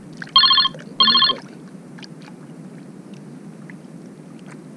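Two short electronic rings with a fast trilling tone, like a telephone ringtone, each about a third of a second long and about half a second apart, within the first second and a half. After them, only a steady low background noise.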